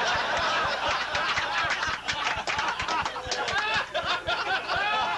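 A roomful of people laughing together, many voices overlapping.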